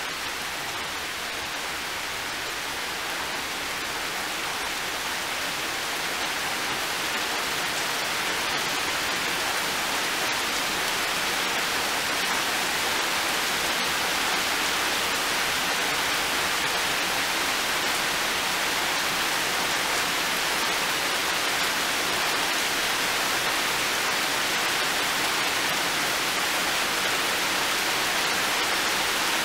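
Heavy rain falling steadily on garden plants and a metal shed roof, a dense even hiss that grows a little louder about five seconds in.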